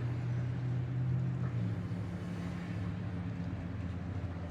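Steady low mechanical hum with a constant pitch, like a running engine, generator or other machinery.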